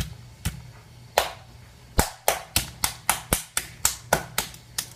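Toy slime being worked in the hands, giving sharp snaps and pops: a few scattered ones, then a quick run of about four a second through the second half.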